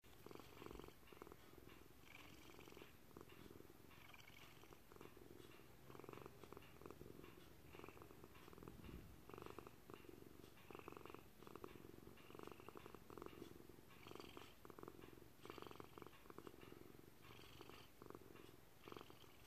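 Faint purring of a gray domestic cat, swelling and easing in a repeating rhythm every second or two.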